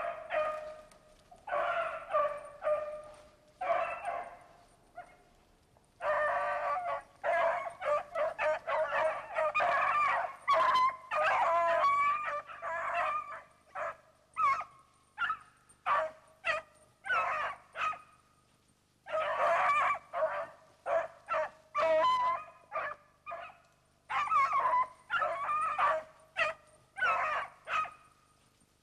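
A pack of beagles baying while hunting rabbit, several hounds giving tongue at once in repeated overlapping calls, with a few short lulls.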